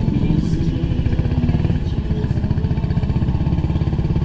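Yamaha Tricity three-wheeled scooter's engine running steadily while riding, a fast even pulsing with road and wind noise.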